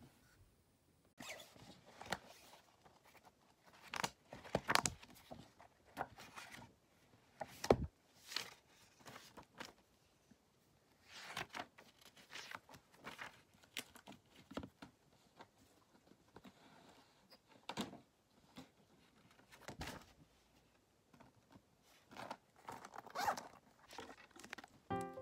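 Paper pages of a spiral-bound notebook being turned and handled: irregular rustles and swishes of paper, a second or two apart.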